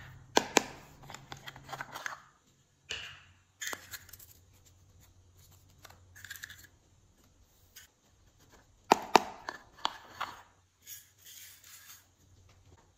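Small plastic containers being handled: sharp clicks and crackles as the plastic lids and cases snap open, with rustling as glitter and sequins are tipped out onto slime. The loudest cluster of clicks comes about nine seconds in.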